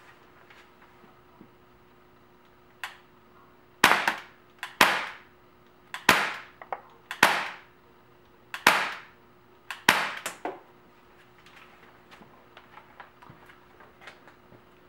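Bear River BOA CO2 BB pistol firing .177 steel BBs, about six sharp pops in under seven seconds, starting about four seconds in, each with a short ringing tail.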